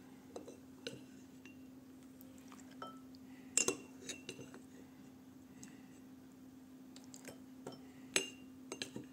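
Porcelain soup spoon clinking against a ceramic stew pot and bowl, a scattered run of light clinks; the loudest comes about three and a half seconds in, another near the end. A faint steady hum runs underneath.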